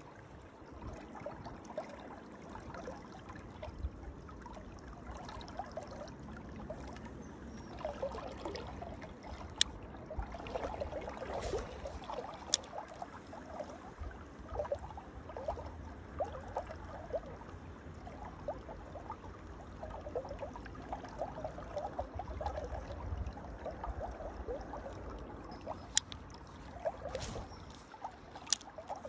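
Shallow river water flowing past, trickling and gurgling, busiest through the middle. A few sharp clicks stand out, two near the end.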